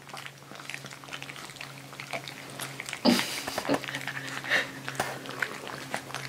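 Young husky-malamute puppies eating water-softened kibble from a ceramic plate: irregular small wet chewing and smacking sounds and clicks of kibble, with a louder cluster about three seconds in. A faint steady hum runs underneath.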